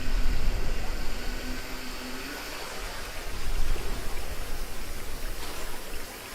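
Steady rushing noise of water on a river-rapids raft ride, over a deep rumble. A low steady hum fades out about two seconds in.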